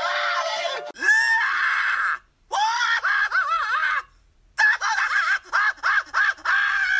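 A string of separate scream sound effects. A steady held sound cuts off about a second in and gives way to a short scream, then a long scream with a wavering pitch, then a quick run of short rising-and-falling shrieks.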